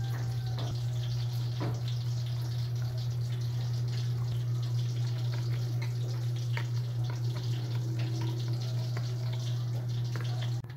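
A metal spoon stirring a liquid dipping sauce in a glass bowl: the liquid swishes and splashes, with scattered light clicks of spoon on glass, over a steady low hum.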